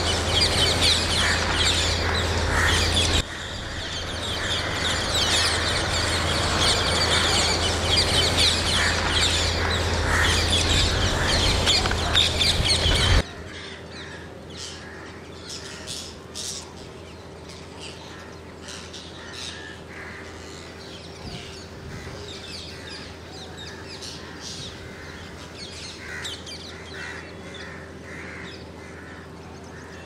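Large flock of rose-ringed parakeets calling in a dense, many-voiced chatter. About thirteen seconds in the level drops suddenly, and thinner, scattered calls follow.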